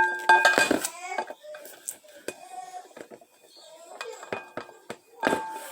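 Kitchen utensils and dishes being handled: scattered light clinks and knocks of kitchenware.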